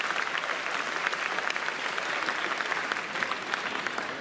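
Spectators applauding after a point in a badminton match: steady clapping that thins slightly near the end.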